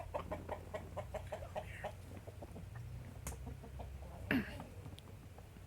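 Backyard hens clucking: a run of short, soft clucks in quick succession, then one louder call with a falling pitch about four seconds in.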